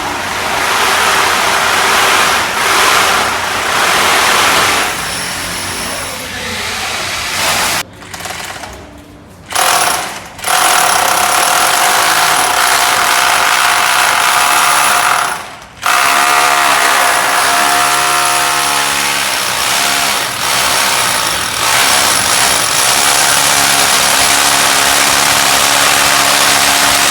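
Electric hammer drill running in long bursts with a steady whine, stopping briefly about eight seconds in and again around sixteen seconds in.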